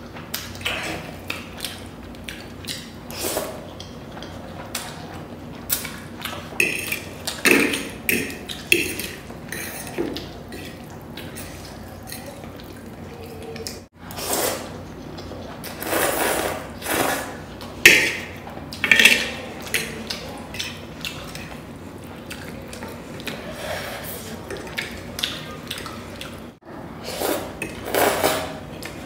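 Close-up eating sounds: spicy instant fire noodles being slurped and chewed in irregular bursts, with a metal fork scraping and clinking on the plate. The sound breaks off abruptly twice, about 14 and 27 seconds in.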